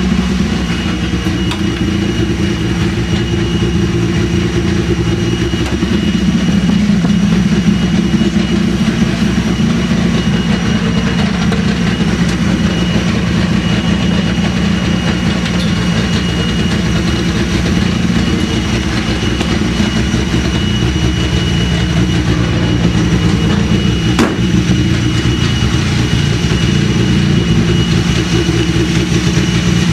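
Rallycross car's engine idling steadily, its pitch stepping up slightly about six seconds in, with a thin high whine over it.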